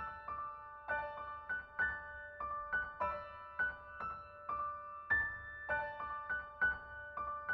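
Background music: gentle piano playing a slow, even pattern of single ringing notes, about two a second.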